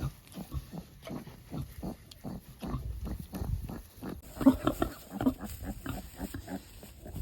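Pigs grunting in a run of short, repeated grunts, about three a second, a few louder ones about halfway through.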